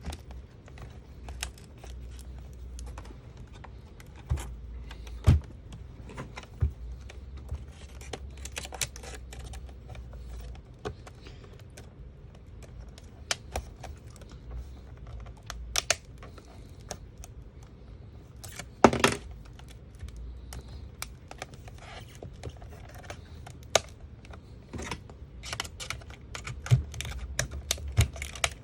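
Irregular small clicks, taps and scrapes of a metal pry tool working at laptop plastic while the LCD is pried from its back cover, with one louder click about 19 seconds in. A low hum runs underneath.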